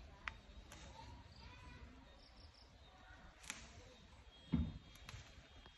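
Young leafy shoots being plucked by hand from a shrub: faint snapping of stems and rustling of leaves, with a few sharp clicks and a low thump about four and a half seconds in.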